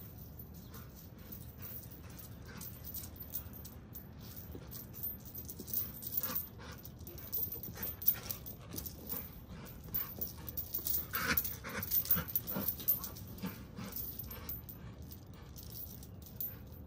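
Dogs moving about, with irregular quick rattling and clicking, busiest and loudest in the middle stretch.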